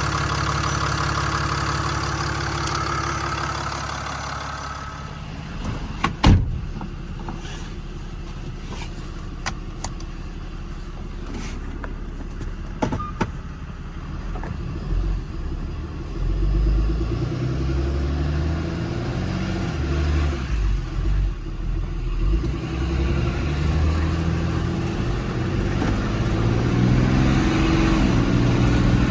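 Ram 5500's 6.7 Cummins diesel idling steadily. A single loud knock comes about six seconds in, followed by a few lighter clicks, and the low running sound turns uneven for the second half.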